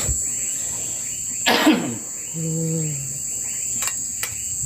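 Crickets chirp steadily in the night. About one and a half seconds in there is a single loud cough, followed by a short hum. Near the end a spoon clicks twice on a plate.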